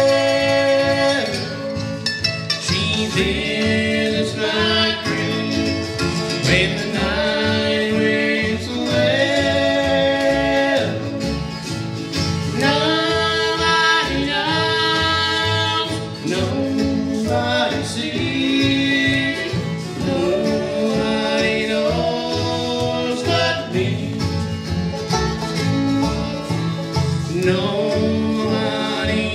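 Bluegrass band playing live: a sung vocal over acoustic guitar, banjo, mandolin, fiddle and bass.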